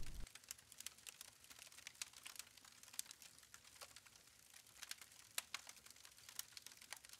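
Faint, irregular crackling and ticking of a small fire over near silence.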